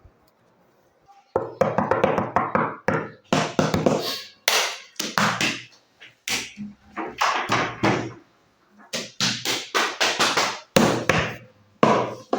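A person coughing again and again, in short bouts of several coughs each.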